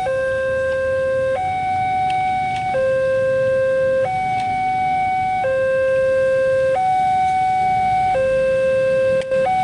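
Level crossing warning alarm sounding a steady two-tone signal, alternating between a lower and a higher tone about every 1.3 seconds, the warning that a train is approaching and the crossing is closed. A low rumble lies underneath.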